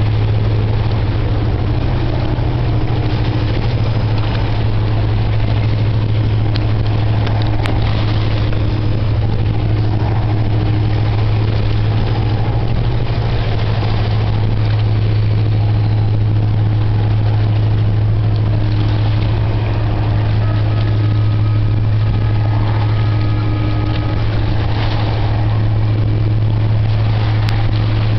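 Steady low engine hum, loud and unchanging, with a fainter higher tone that comes and goes.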